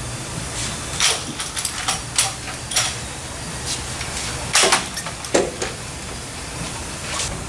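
Irregular sharp clicks and knocks, about eight spread over several seconds, from hands working on a car and its alignment gear, over a steady low hum.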